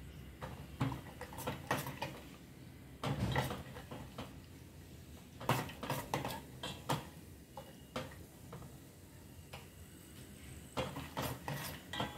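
Steel ladle scraping and clinking against a metal pan while stirring cashews and almonds frying in ghee. The clinks and scrapes come irregularly, with a louder cluster about three seconds in and another about five and a half seconds in.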